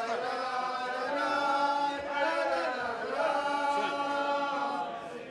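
Several voices singing a slow chant together, with long held notes that change pitch every second or so.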